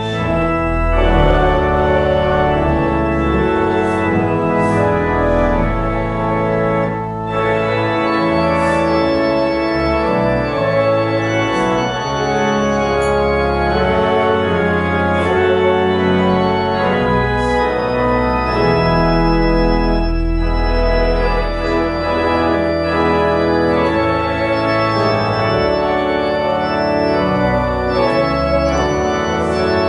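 Pipe organ playing full sustained chords over a moving bass line.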